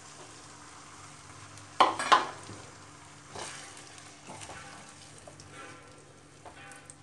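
Boiled urad dal and kidney beans being stirred into hot tomato-cream masala in a non-stick kadhai with a wooden spatula: a low sizzle with scraping strokes against the pan. A louder clatter comes about two seconds in.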